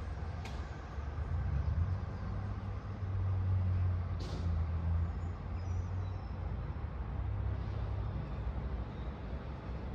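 Distant city road traffic: a steady low rumble with a faint hiss above it, and a brief higher hiss about four seconds in.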